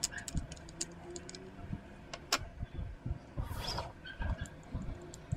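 Small plastic parts of a snap-together tank model kit clicking and knocking against each other as they are handled and pressed into the plastic hull. There is a sharper click about two seconds in and a brief rustle a little past three seconds.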